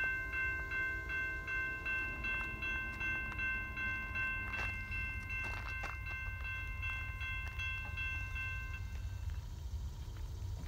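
Low rumble of an approaching freight train still out of sight, with a repeating high ringing that stops about nine seconds in.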